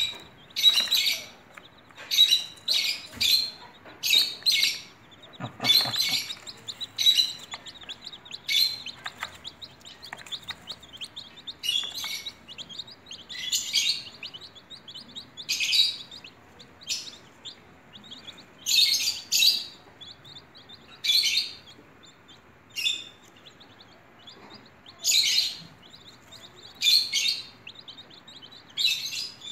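Baby chicks peeping: loud, high-pitched bouts of quick peeps every second or two, with fainter peeping in between.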